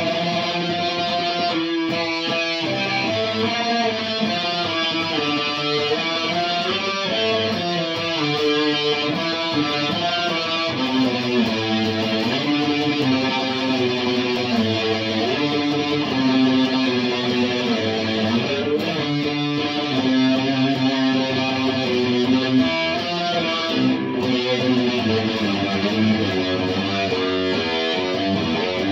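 SG electric guitar played through an amplifier: a melodic line of held notes that slide up and down the neck.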